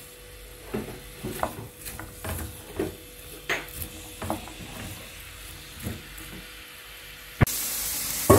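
Chopped onions frying in oil in a pan, with a spoon stirring them in short scrapes and taps. About seven and a half seconds in, after a sharp click, the sizzling becomes suddenly much louder.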